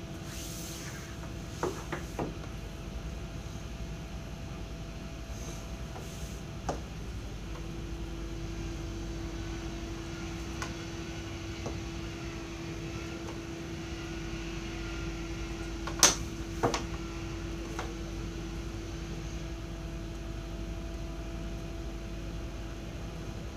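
Light knocks and taps of a large plastic set square and ruler being moved and set down on a drafting table, a few scattered through, the sharpest about two-thirds of the way in. Under them a steady room hum, with a steady tone that sets in about a third of the way through.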